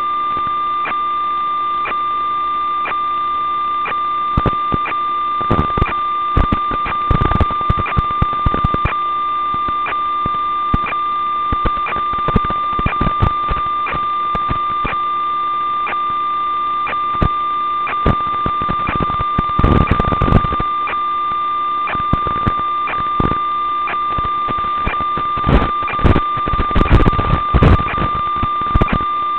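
Audio channel of an analog FPV video link as recorded by the DVR: a steady electronic tone with several fainter steady tones under it, broken by irregular bursts of radio static crackle that come more often in the second half.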